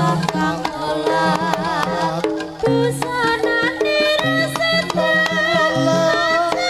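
Live Javanese jaranan ensemble music played through a loudspeaker system: a wavering melody line over frequent drum strokes and low held bass notes.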